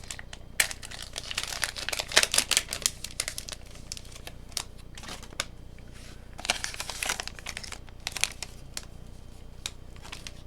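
Foil Pokémon booster pack wrapper crinkling and crackling in irregular bursts as it is handled and opened.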